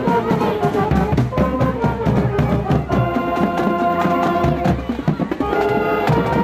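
Music with a steady drum beat under held melody notes.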